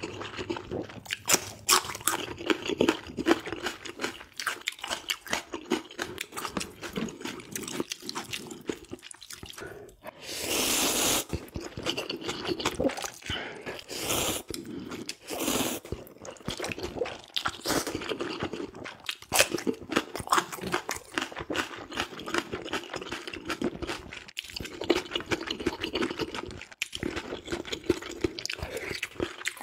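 Close-miked eating of ramen and kimchi: continual wet chewing and crunching. There is a long loud slurp of noodles about a third of the way in, then two shorter slurps soon after.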